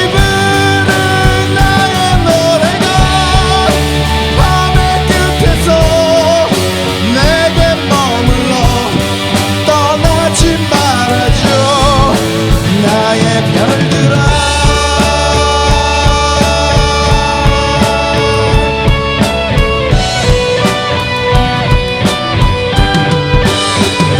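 Rock band playing live in a rehearsal room: drum kit, electric guitar and bass, picked up by a phone's microphone. A lead melody bends and slides over the first half, then the band moves into fuller sustained chords about fourteen seconds in.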